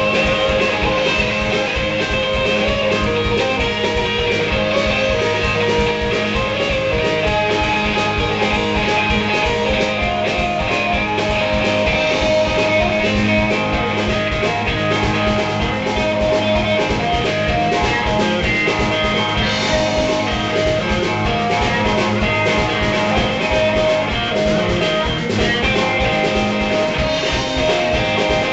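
Live band playing an instrumental passage without singing: electric guitar over a drum kit keeping a steady beat.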